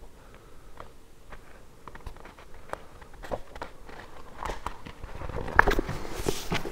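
Pages of a glue-bound book being turned and handled: a string of small paper clicks and crackles that grow louder over the last couple of seconds, with a sweeping rustle of a page about six seconds in.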